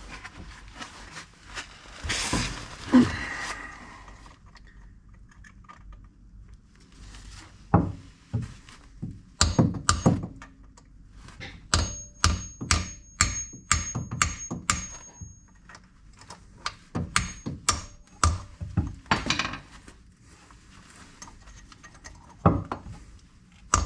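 Repeated hammer blows on metal, knocking out the pins of a car's gear selector rod: a scrape early on, then runs of sharp strikes about two or three a second, some leaving a high metallic ring.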